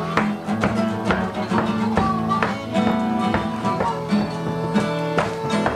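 Instrumental background music of plucked strings over held low notes, with a quick steady beat.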